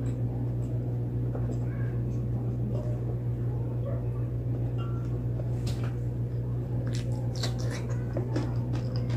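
Close-up eating sounds: wet chewing and lip smacking of a mouthful of rice, then crisp crunches of a vinegar-soaked cucumber slice being bitten about seven to eight seconds in. A steady low hum runs underneath.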